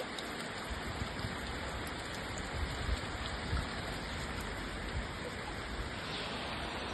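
Steady heavy rain falling, an even hiss of rainfall on surfaces.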